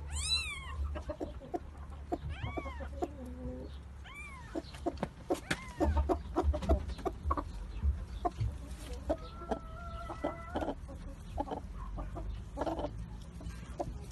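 Chickens clucking, with a few short calls that rise and fall in pitch over a steady low background hum.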